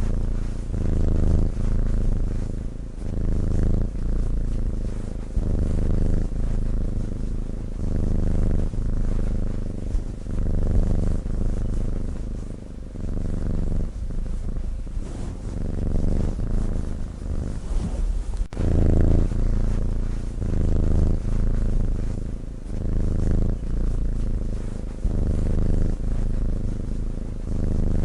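Sleeping cat's low, buzzing breath rumble, swelling and fading with each breath in and out, a little over one pulse a second.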